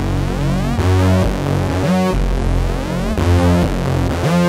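Background electronic music: synthesizer chords with a gliding sweep about every second and a quarter.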